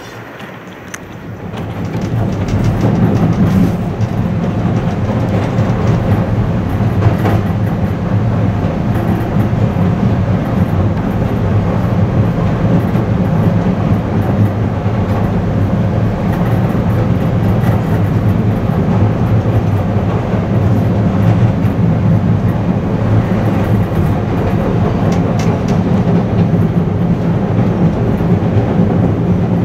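Elevated rapid-transit train running, heard from aboard: a steady low rumble of wheels and motors with clickety-clack over the rail joints, coming in about a second and a half in.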